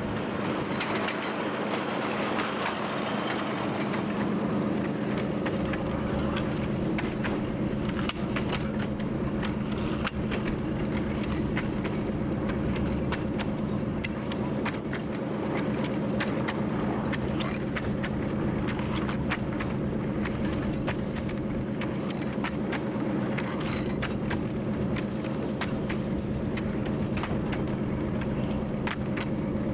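TU7 narrow-gauge diesel locomotive running along the line, heard from the cab: a steady engine drone with frequent irregular clicks and rattles from the wheels and rolling stock on the rails.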